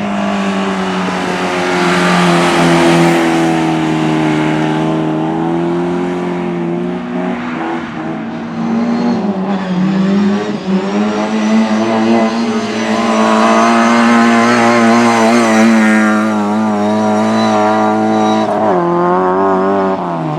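Speedway motorcycles' single-cylinder engines racing at high, steady revs, their pitch dropping briefly about eight to ten seconds in and again near the end.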